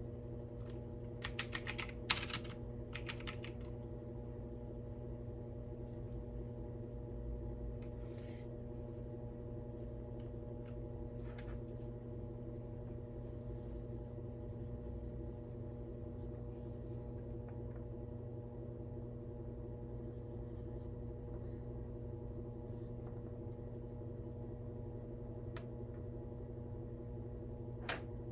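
Computer keyboard typing: a short quick run of keystrokes about a second in, then only a few scattered single key clicks. Underneath, a steady low hum with a few fixed tones, a washing machine running.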